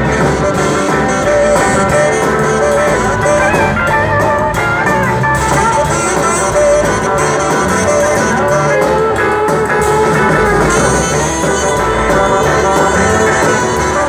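Live band playing loud amplified music, with electric guitar to the fore over bass, drums and keyboard.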